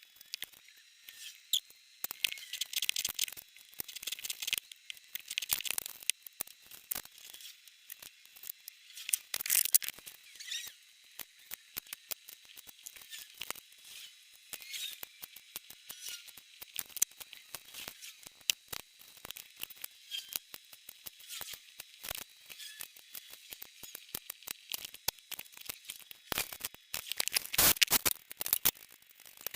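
Scattered light clicks, taps and faint high squeaks and scrapes from wood and hand tools being handled during woodworking, in a pause between power-tool runs.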